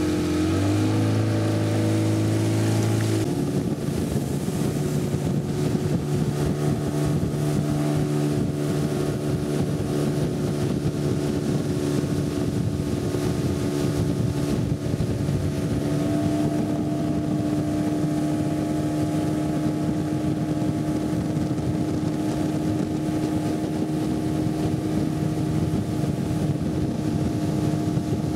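Engine of a small wooden motorboat speeding up in steps over the first three seconds, then running steadily under way.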